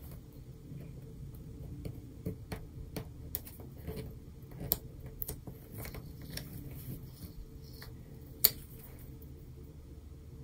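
Scattered small clicks and taps of fingers and fingernails on a paper sticker and planner page as a crooked sticker is peeled up and pressed back down, with one sharper click about eight and a half seconds in.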